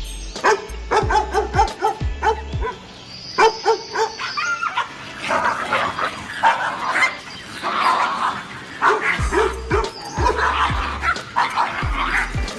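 A dog barking and yipping many times in quick succession, over background music with a repeating bass line.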